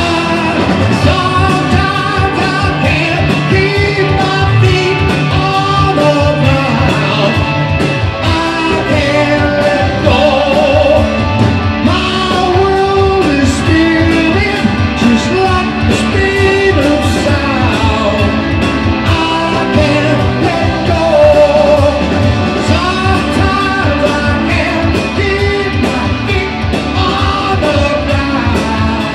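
Live rock band playing at full volume: a lead singer over electric guitars, keyboards, bass and a drum kit with a steady beat, amplified through the hall's PA.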